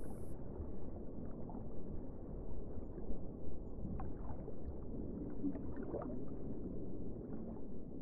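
Underwater ambience from the footage's own sound: a steady low rumble of water with faint gurgling and a few short rising chirps from a scuba diver's exhaled bubbles.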